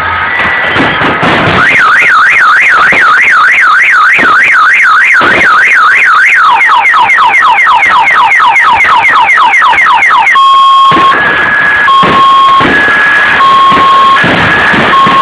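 Car alarm cycling through its siren patterns: a fast warble rising and falling about three to four times a second, then a run of quick falling sweeps, then a slower alternation between two steady tones. Fireworks bangs sound behind it.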